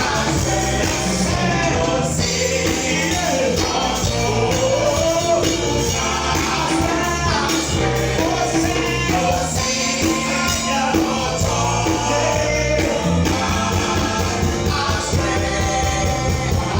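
Live gospel praise music: a band playing with a steady beat while a choir and congregation sing.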